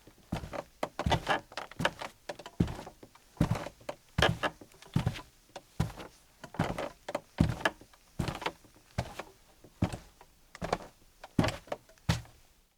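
A man's footsteps in leather-soled shoes on a rug over a creaky floor: a thud with a creak at each step, at a walking pace of about two footfalls a second. They stop suddenly near the end.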